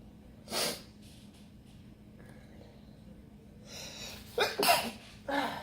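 A woman sneezing, set off by red pepper she inhaled: a short burst of breath about half a second in, then a drawn-in breath and a sneeze in quick bursts near the end.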